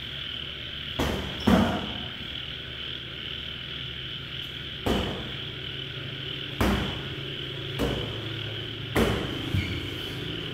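Boxing gloves landing punches, about seven sharp smacks at uneven intervals, over a steady high chirring of insects.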